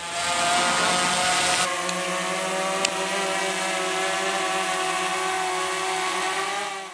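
A motor runs steadily with an even, buzzing pitch and a hiss over it. A rougher low hiss drops away about a second and a half in, there is one short click a little later, and the sound stops just before the end.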